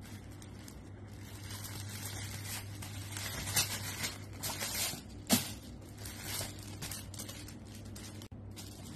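Tissue paper rustling and crinkling as it is lifted and folded back by hand, in short bursts, the loudest sharp crackle a little past five seconds in.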